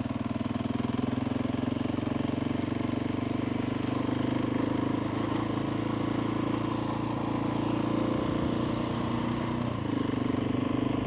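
Single-cylinder engine of a 2021 Husqvarna 701 Supermoto with a Wings aftermarket exhaust, running at a steady cruise while ridden on a dirt road. Its pitch holds fairly even, dipping slightly about halfway through and again near the end.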